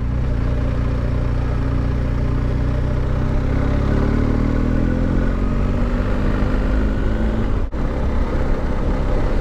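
Motorcycle engine pulling under acceleration, its pitch rising slowly over the first few seconds and then holding at a steady cruise, with wind rushing over a GoPro microphone that has lost its foam windscreen. The sound cuts out for an instant near the end.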